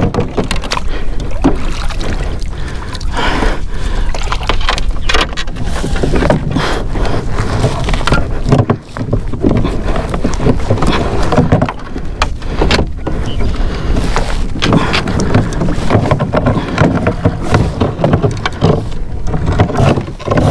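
A fishing kayak being pushed with a pole to free it after it stuck on an oyster bed: water sloshing and splashing around the hull, with repeated knocks and scrapes from the pole and the boat.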